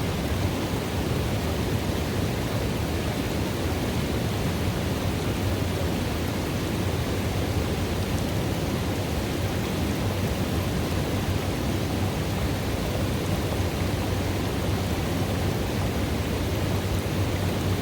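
River water running into a pool: a steady, unbroken rush of water with a deep low rumble beneath it.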